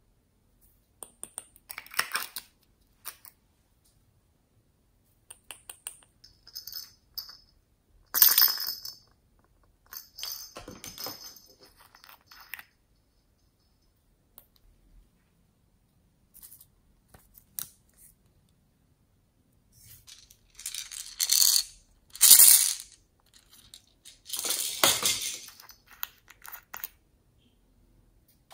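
Small plastic containers of slime toppings being opened, shaken and tipped out onto slime: scattered clicks and short rattling, sprinkling pours with quiet gaps between. The loudest pours come about eight seconds in and again between about twenty and twenty-six seconds.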